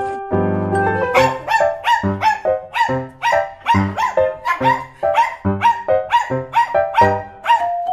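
Upbeat background music with a steady beat and a bass note about twice a second, with small dogs (Shih Tzus) barking under it.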